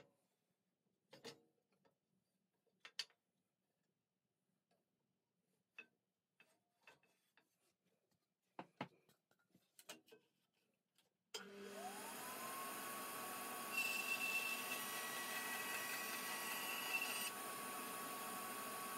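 Faint handling clicks and knocks on a bandsaw table. About eleven seconds in, the bandsaw motor starts with a rising whine that settles into a steady running noise. For about three seconds near the middle of that run a higher whine joins, as the blade cuts a 5 mm acrylic sheet.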